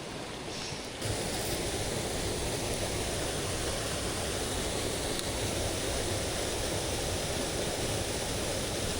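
Mountain stream rushing over rocks: a steady hiss of flowing water that jumps suddenly louder about a second in, then holds steady.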